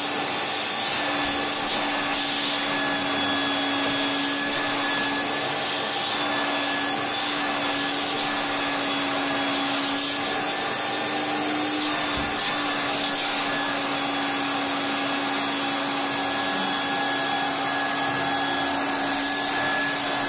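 Wet-extraction upholstery cleaner's vacuum motor running steadily, with a constant whine, as its hand nozzle is drawn over a fabric chair seat to wash it.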